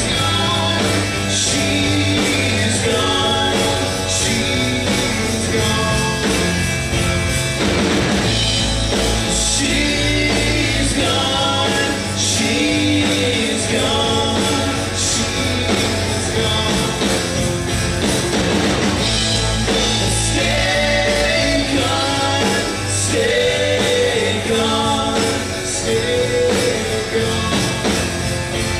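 Live rock band playing: electric guitars and bass over a drum kit, with a sung vocal line.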